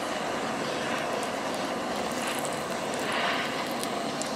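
Small handheld gas torch burning with a steady hiss as its flame heats wax in a metal spoon.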